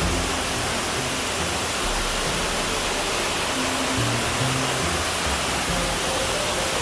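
Waterfall crashing close by, a loud steady rush of falling water, with background music's low held notes playing under it.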